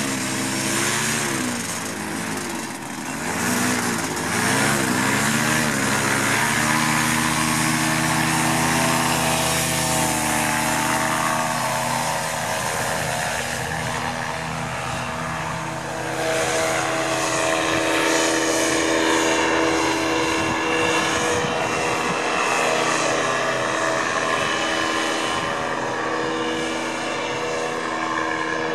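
Paramotor trike's engine and propeller running at takeoff power as the trike rolls, lifts off and climbs. The pitch wavers for the first few seconds, then settles into a steady drone.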